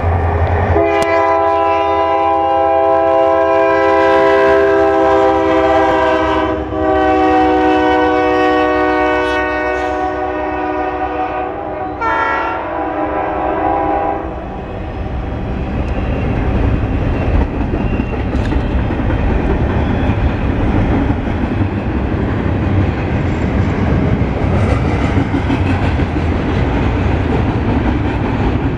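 Union Pacific freight locomotives sounding a multi-chime air horn in several blasts, two long ones, a short one and a final one, over the first fourteen seconds or so. Then the double-stack container cars roll past with a steady rumble and wheel clatter over the rail joints.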